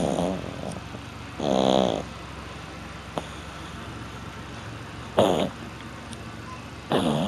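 French bulldog snoring in its sleep: four separate rattling snores, unevenly spaced, the longest about a second and a half in.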